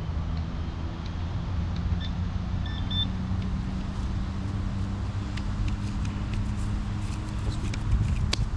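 Steady low hum of an engine, with a few short high beeps about two to three seconds in and a couple of sharp clicks near the end.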